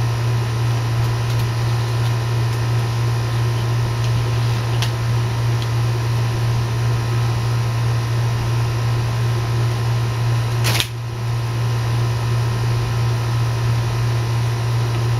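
A steady low mechanical hum, like a fan or air-handling unit, with a faint high whine over it, and one sharp click about eleven seconds in.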